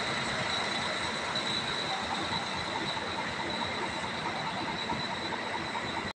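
Steady mechanical hum and hiss of idling buses, with a constant high whine running through it. It cuts off abruptly near the end.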